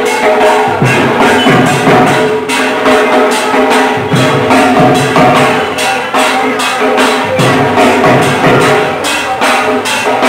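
Dhak, the large barrel drums of Durga Puja, beaten with sticks in a fast, steady rhythm.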